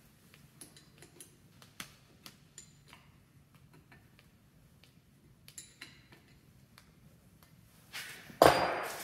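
Light metallic clicks and clinks of hand work on a rear brake line fitting, then one much louder metal clank with a short ring near the end.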